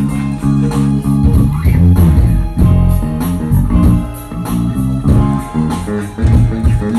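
Live band playing, with guitar and bass guitar to the fore and a beat of sharp hits.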